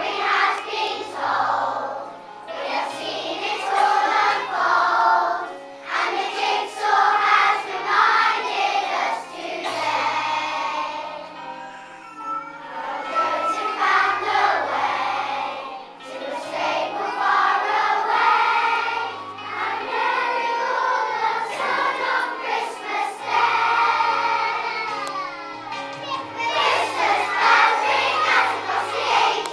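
Children's choir singing a song over an instrumental backing with a bass line.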